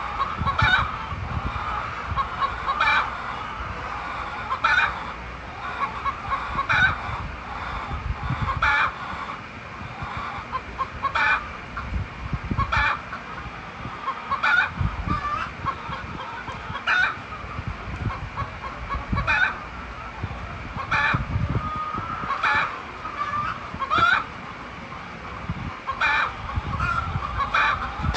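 Chickens clucking, with short sharp calls about every two seconds, under intermittent low rumbles.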